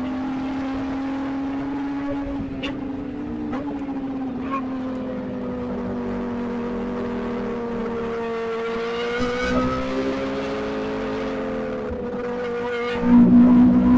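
Inline-four sport motorcycle engine running at steady revs on the move, its pitch dipping and rising slightly midway, then getting louder as it revs up near the end.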